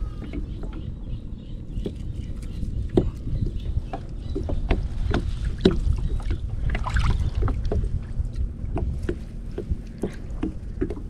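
Irregular knocks and clicks of gear being handled on a small boat, over a steady low rumble of water and wind.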